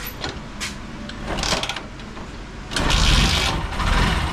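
A TVS Apache RTR 160 4V's single-cylinder engine being started: a few short clicks, then the engine fires about two-thirds of the way in and settles into a steady run. It has just had its cam chain adjuster and rocker arm replaced to cure a tick-tick noise.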